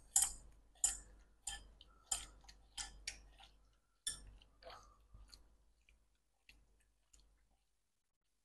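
Seasoned chicken pieces being mixed by hand in a ceramic bowl: irregular light clicks and knocks against the bowl, one or two a second, with a faint ring to them. They fade and stop about seven seconds in.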